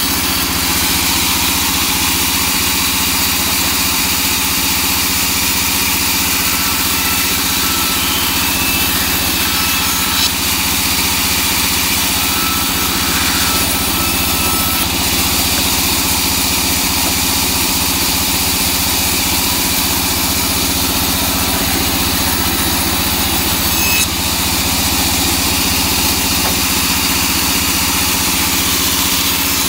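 Large vertical bandsaw running steadily as teak boards are fed through it and ripped along their edges: a constant machine hum under a continuous hissing cutting noise.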